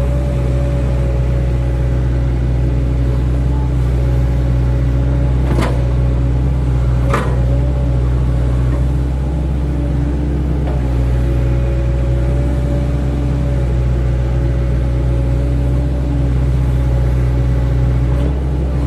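Hydraulic excavator's diesel engine running steadily under work, with a held whine over the low engine hum. Two sharp knocks about a second and a half apart come around six seconds in.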